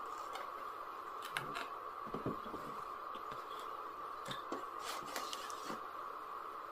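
Cardboard packaging being handled as a box is opened: flaps folding back and an inner cardboard tray sliding out, heard as scattered light scrapes, rustles and taps at irregular intervals over a steady background hum.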